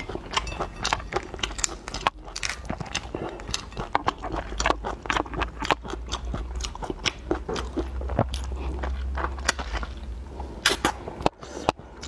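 Close-miked eating of raw soy-marinated prawns: wet chewing with dense crackling and clicking as the shells are pulled apart, then biting into a prawn near the end.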